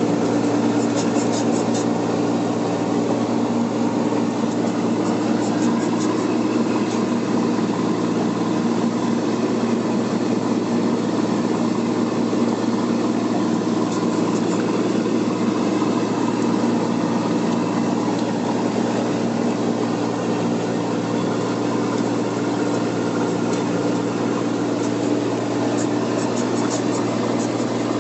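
Heavy cargo truck's engine running steadily, heard from inside the cab, with the cab creaking and squeaking in short rapid bursts now and then, most of all near the start and toward the end.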